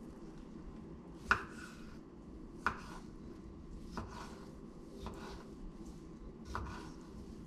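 Kitchen knife slicing gherkins on a wooden cutting board. About five separate cuts, a little over a second apart, each a sharp knock of the blade reaching the board; the first is the loudest. A low steady hum sits underneath.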